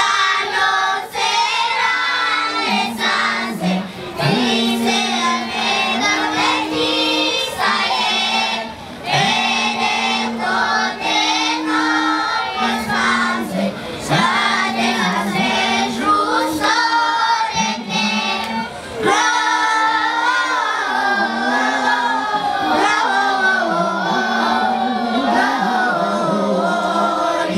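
Children's choir singing a song together, their voices carried through hand-held microphones and a loudspeaker.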